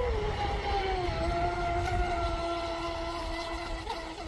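Electric RC speedboat's motor whining steadily at speed. The pitch steps down a little about a second in, holds level, then fades near the end.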